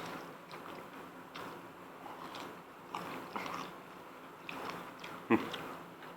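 People chewing and eating with soft, scattered wet mouth smacks and clicks, with one sharper click about five seconds in.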